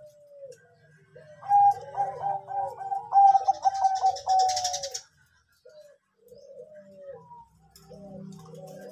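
Zebra dove (Bangkok-type perkutut) cooing in short, hooked notes. From about one and a half to five seconds in there is a louder, quicker run of rolling coos.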